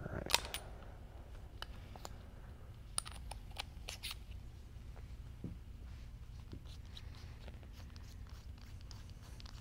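Handling noise from reassembling a metal airsoft HPA engine: a few sharp clicks and light knocks of metal parts, the loudest just after the start and a cluster about three to four seconds in, then small rustles.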